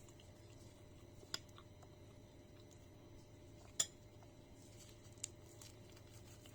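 Three short, sharp clinks of tableware against a plate, the middle one loudest, over quiet room tone.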